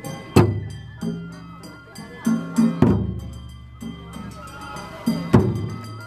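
Japanese festival music: big taiko drum strokes about every two and a half seconds, with lighter hits and a held melody between them.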